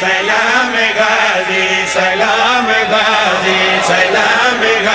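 Several men's voices chanting together, the refrain of a devotional qaseeda.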